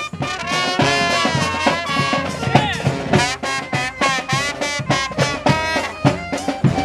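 A street marching band playing live, brass horns over a steady drum beat.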